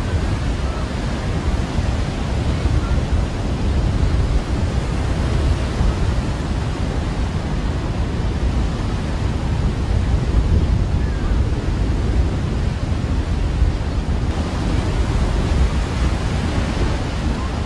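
Ocean surf washing and breaking on a beach, with wind buffeting the microphone: a steady rushing noise.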